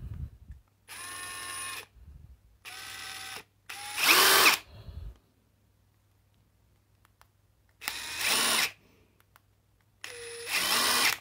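Parkside Performance PDSSAP 20-LI A1 cordless impact driver, with a 20 V brushless motor, run free with no load in five short trigger pulls. Some pulls are quieter and some much louder, and the motor's whine rises in pitch as it spins up. There is a low knock at the very start.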